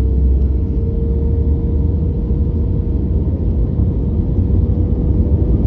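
Loud, steady low engine rumble with a constant mid-pitched hum running through it.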